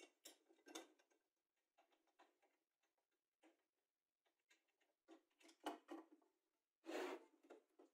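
Faint, irregular clicks, ticks and scrapes of a screwdriver working the screws of a bench grinder's metal switch box, and of the switch and its wires being handled. A slightly louder, brief scrape comes about seven seconds in.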